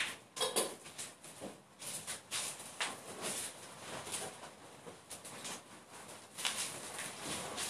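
Soft, irregular rustling and shuffling of people moving in line, with short scrapes and taps coming unevenly all through.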